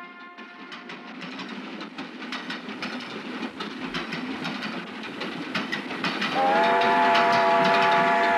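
A train approaching, its wheels clacking over rail joints and growing louder. About six seconds in a train whistle sounds loud and steady as a chord of several tones.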